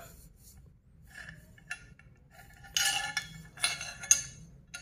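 Metal clinks and taps from a new motorcycle exhaust header pipe and its flange being handled, a few light clinks followed by louder ringing knocks about three and four seconds in.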